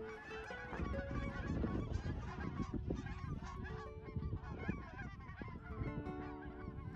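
A large flock of geese flying overhead, many birds honking at once in a dense, overlapping chorus, over a low rumble.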